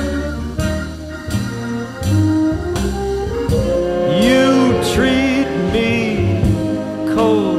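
Music played back from a cassette tape on a TEAC W-1200 deck: a song with a singing voice over instruments.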